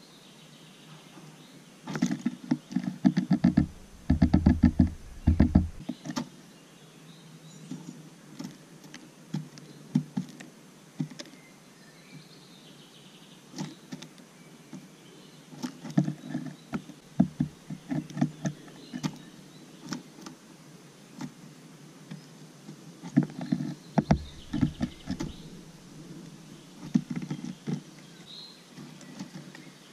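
Great tit pecking at sunflower seeds and scuffling through the husks in a wooden feeder box, right at the microphone, in bouts of rapid sharp taps and clicks.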